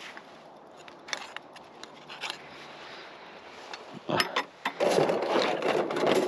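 Steel rebar being bent into stirrups on a hand-operated stirrup bender: scattered light metal knocks, a sharp clank about four seconds in, then louder continuous scraping and rattling of the bars.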